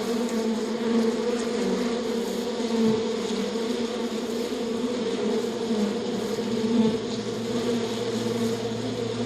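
Steady buzzing of a flying bee or wasp-type insect's wings, holding one pitch that wavers slightly. A lower steady hum joins about three-quarters of the way through.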